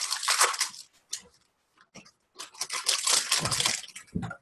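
Foil booster-pack wrappers crinkling and being torn open by hand, in two stretches: one in the first second and a longer one from about two and a half seconds in, with a few soft knocks on the table.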